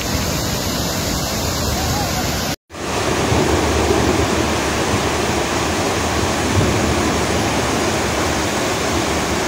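Rushing floodwater: a torrent pouring over a ledge into a rocky gully, then, after a brief dropout about two and a half seconds in, a slightly louder, steady rush of flood streams cascading down a mountainside.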